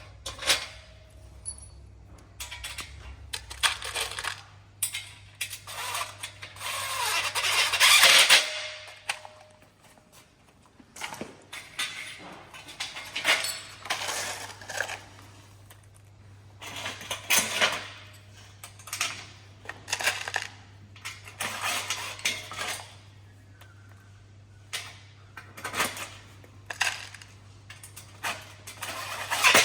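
Metal greenhouse frame parts, M5 bolts and nuts clinking and rattling as they are handled and fitted together, in irregular sharp clicks. There is a louder stretch of noise around seven to eight seconds in.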